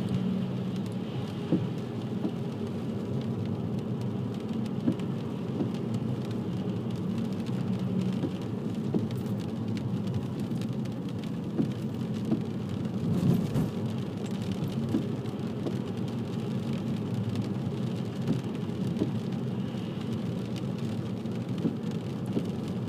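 Inside a moving car: steady engine hum and tyres swishing on a wet road, with the windscreen wipers going. A single thump a little past halfway through.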